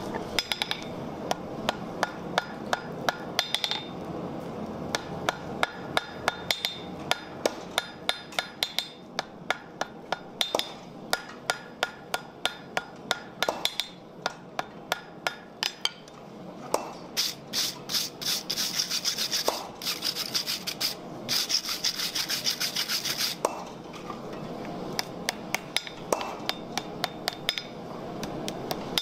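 Hand hammer striking hot iron stock on an anvil in quick runs of blows. About two-thirds through come two denser, brighter flurries of strokes.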